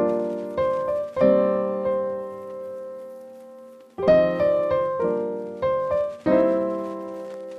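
Background piano music: gentle chords struck and left to fade, one held ringing for about three seconds before a new run of chords.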